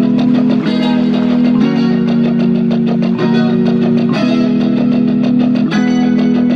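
Background music, with sustained chords changing about every second or so.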